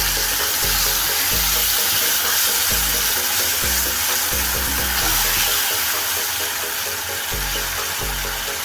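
Food sizzling hard in a hot pan, a loud steady hiss after a splash of water goes into the frying paste, with background music carrying a steady bass beat underneath.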